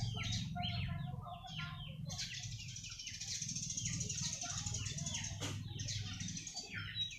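A busy chorus of small birds chirping and calling, many short falling chirps overlapping without pause, over a low steady hum.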